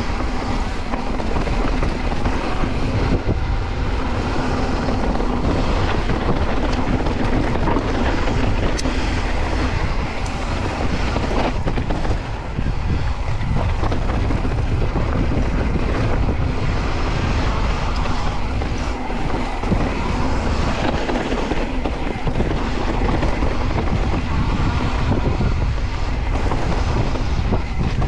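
Santa Cruz Bronson carbon mountain bike descending a dirt and rock trail at speed: steady wind rush on the microphone over tyre noise, with occasional knocks and rattles from the bike.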